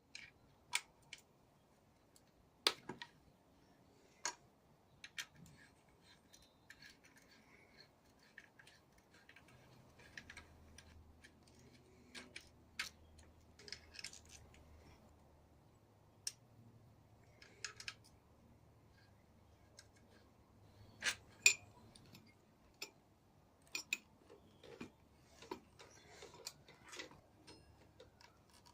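Scattered light metallic clicks and clinks, irregular and a second or more apart, from hand tools and parts being handled while working on a handcycle's crank bearing assembly. A faint low hum sits underneath from about a third of the way in.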